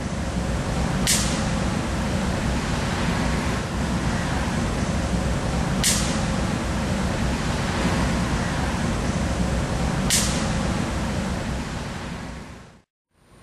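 Steady city street noise with a low traffic rumble, broken by three short, sharp high-pitched hisses about five seconds apart.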